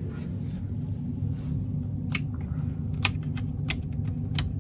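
Breaker toggle switches on a boat's electrical panel being flipped one after another: four sharp clicks in the second half, over a steady low rumble.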